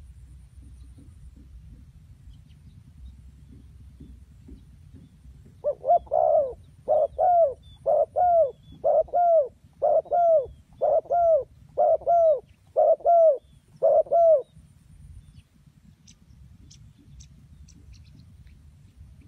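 Spotted dove cooing: a run of about nine short, low coos, roughly one a second, starting about six seconds in and stopping about fourteen seconds in.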